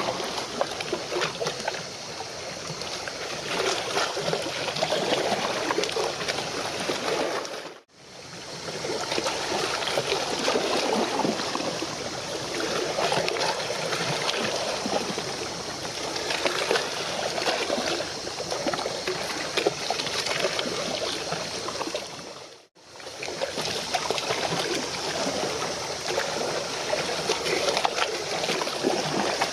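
Water lapping and trickling, a steady splashy wash that cuts out briefly twice.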